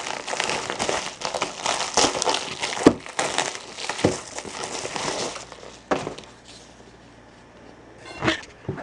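White plastic mailer envelope being torn open and crinkled by hand, a dense crackling for about five seconds, then quieter with a few short knocks as a box is pulled out.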